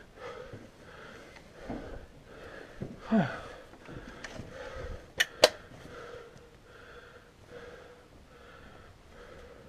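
A person panting, quick breaths about twice a second, close to the microphone. Two sharp cracks a quarter second apart come about five seconds in.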